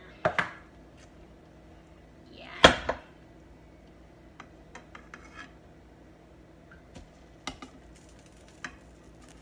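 A spoon clinking and scraping against the metal pot of a pressure cooker while fat is skimmed off beef broth. A couple of sharp clicks come at the start and a loud clatter about two and a half seconds in, followed by light scattered taps.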